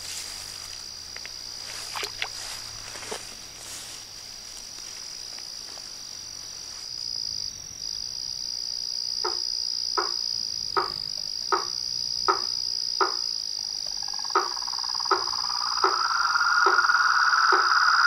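Night chorus of frogs and insects: a steady high-pitched cricket trill throughout, joined about nine seconds in by a frog's short, evenly spaced calls, about one and a half a second. Near the end a louder droning chorus swells in.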